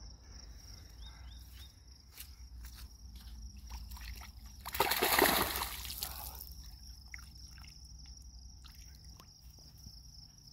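A largemouth bass thrown back into shallow pond water, landing with a splash about five seconds in, over a steady high insect trill.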